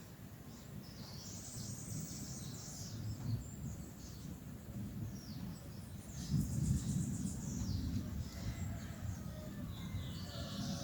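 Several birds chirping and calling with short, high notes and trills, over a steady low outdoor rumble.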